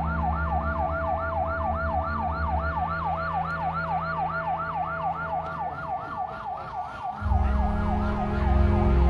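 Emergency-vehicle siren in a fast yelp, its pitch sweeping up and down about four times a second, over a low steady drone. About seven seconds in the siren fades and a heavier low drone swells.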